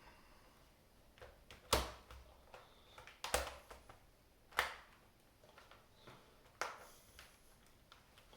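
Sharp clicks and knocks from handling a laptop's plastic case: four louder clicks one to two seconds apart, with fainter taps between.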